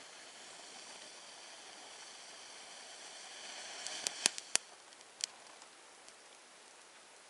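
A hunting match hissing faintly as it burns, swelling just before a few sharp crackles and pops about four seconds in as the flame is put to birch bark.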